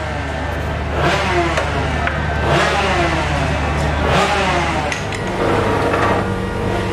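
Two-stroke 125 cc Grand Prix racing motorcycle engine being revved in repeated blips, about one every second and a half, over a steady low running note.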